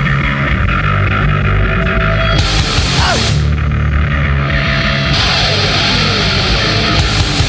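Anarcho hardcore punk song played by a full band: loud, distorted guitars over drums.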